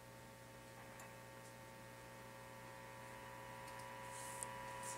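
Faint hum and a steady buzzing tone from the speaker of an RCA Model T62 tube radio, growing slowly louder as its tubes warm up: the 455 kc test signal fed into the antenna is beginning to come through the IF section as audio.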